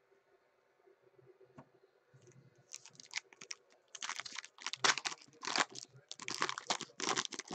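Foil wrapper of a baseball card pack crinkling and crackling as it is torn open and handled, in a quick irregular run of crackles that starts about three seconds in.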